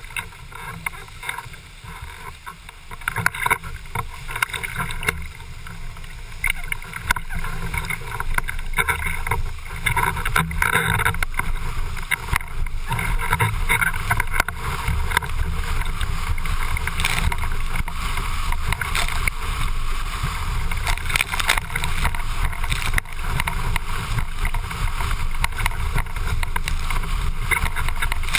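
Windsurf board planing fast over chop: water hissing and spraying off the board, with frequent sharp slaps as it hits the waves, and wind rumbling on the microphone. It grows louder over the first ten seconds or so, then stays loud.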